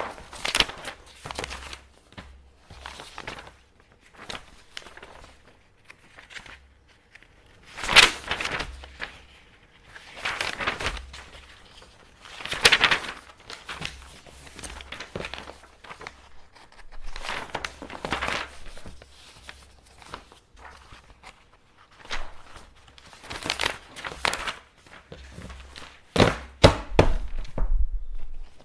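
Sheets of office paper being handled and folded: irregular crisp rustles and swishes every second or two. About 26 seconds in there is a quick run of sharp knocks with a dull thud under them.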